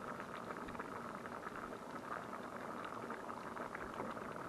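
Pot of beans boiling in water on a camp stove burner: a steady bubbling with many small pops.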